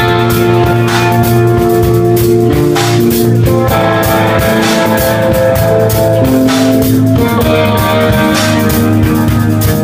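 Instrumental rock music: electric guitar with a drum kit playing a steady beat under held guitar notes.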